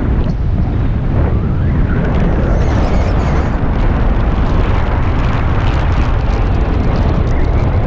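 Loud, steady wind buffeting the microphone in flight under a paraglider.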